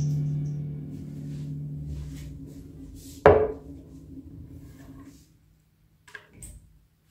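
A metal saucepan set down on a wooden cutting board with a single loud knock about three seconds in, followed by a couple of faint small knocks near the end. Background music fades out under it in the first few seconds.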